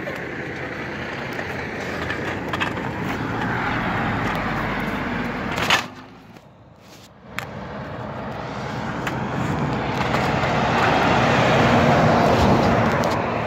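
Road traffic: a vehicle goes by in the first few seconds, then a diesel semi tractor-trailer with a PACCAR MX-13 engine approaches and passes close, loudest near the end.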